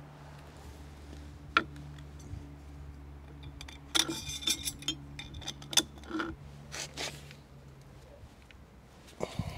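Glass grave candles clinking and scraping as they are set down on a stone grave slab: one sharp clink early, a dense run of clinks from about four to six seconds in, a few more around seven seconds. A steady low hum runs underneath until about eight seconds in.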